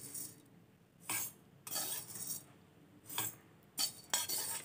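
Dry roasted red poha (flattened rice) being scooped into a stainless-steel mixer-grinder jar: about five short scraping, rattling strokes of metal on metal as the flakes fall in.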